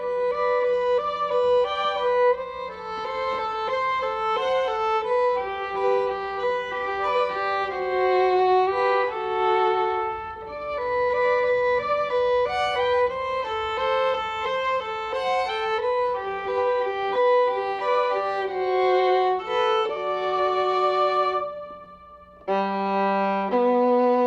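Background music: an upbeat fiddle tune playing fast runs of notes over a steady low drone, breaking off briefly near the end before starting again.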